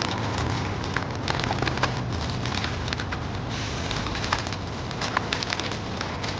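Close-miked eating of a shawarma wrap: many sharp, irregular crackly clicks of chewing and handling the food, over a steady low hum.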